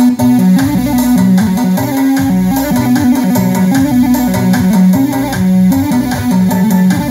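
Korg Pa4X arranger keyboard playing an Arabic folk (sha'bi) sound set: a hand-played melody over a continuous rhythmic accompaniment, with a low bass line moving back and forth between two notes.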